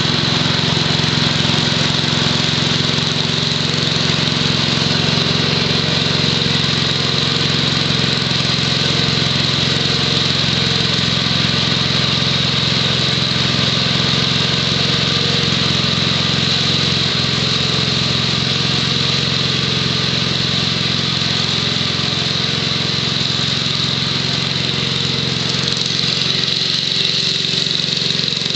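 Six-horsepower Tecumseh H-60 single-cylinder engine of a Wheel Horse lawn tractor running steadily under load, driving a snowthrower.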